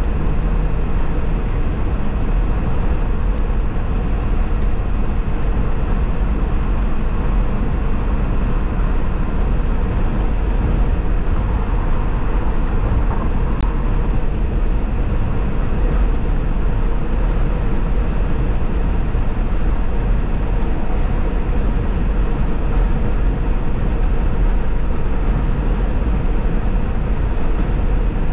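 Steady road noise of a car driving at highway speed: tyre and wind noise over a deep, even rumble.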